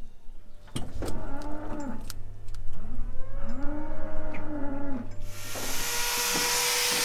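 Dairy cow mooing: about three low, drawn-out calls, with a few sharp knocks among them. About five seconds in, an electric grinder used for hoof trimming starts running with a steady whine and hiss.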